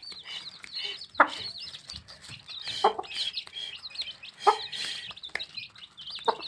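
A brood of baby chicks peeping constantly in quick, high calls, while the mother hen among them gives four short, louder clucks at intervals of a second and a half or so.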